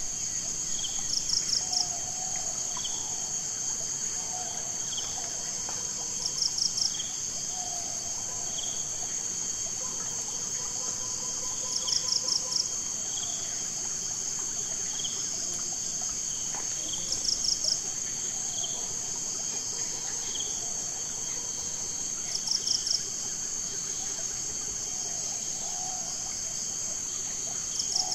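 Insects chirring in a steady high trill. A quick run of four or five chirps repeats about every five and a half seconds, and a softer single chirp comes roughly once a second.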